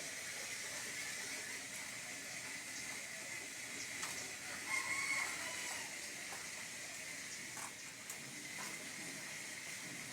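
Campfire burning with a steady hiss and a few faint pops, with one short pitched call about halfway through.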